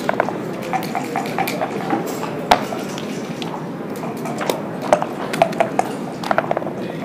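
Irregular sharp clicks and clacks of backgammon play: dice rolled onto the board, checkers set down and the game clock pressed, over steady room noise. The loudest click comes about two and a half seconds in, and there are quick clusters of clicks near the end.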